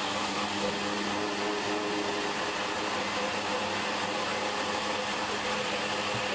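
An espresso machine's steam wand steams milk in a large jug for two lattes. It gives a steady hiss with a faint tone running through it.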